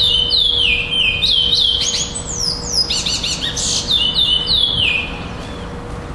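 Male curió (chestnut-bellied seed finch) singing a fast run of clear whistled notes, most of them sliding downward, until the song stops about five seconds in.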